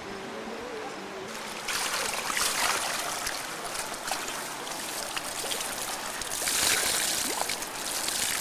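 Flowing stream water close by, with splashing and dripping as a cloth is dunked and wrung out in it. The water sound swells about a second and a half in and is loudest in the last couple of seconds.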